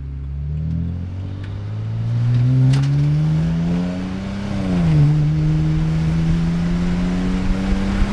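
BMW 335i's N54 twin-turbo 3.0-litre inline-six accelerating on a half-throttle pull, heard from inside the cabin. The engine note climbs steadily, drops sharply at an upshift about five seconds in, then climbs again.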